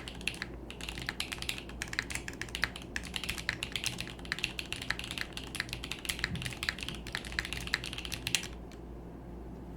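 Fast typing on a Kohaku mechanical keyboard with a carbon fiber plate and Tecsee Rubrehose Brown linear switches (POM stems, polycarbonate top and nylon bottom housings, factory lubed): a dense, uneven run of clacky keystrokes that stops about eight and a half seconds in.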